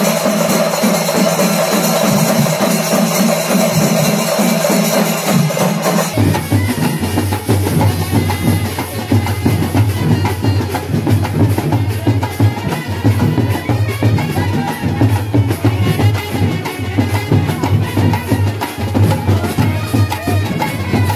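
Chenda drums pounding out a temple drum ensemble's rhythm, cutting about six seconds in to a marching brass band: horns playing a pulsing tune over a big bass drum and side drums.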